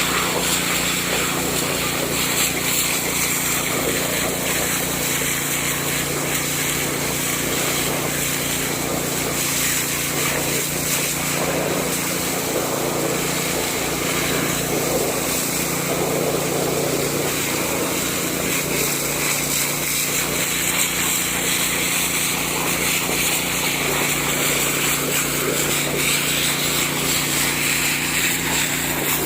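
Small petrol-engine water pump (alkon) running steadily at a constant speed.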